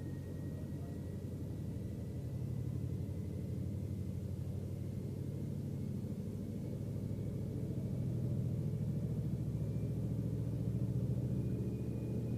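Fisher & Paykel GW712AU washing machine in its final spin, the drum speeding up from about 600 toward 800 RPM. It makes a steady low hum with a faint whine whose pitch rises slowly, growing slightly louder.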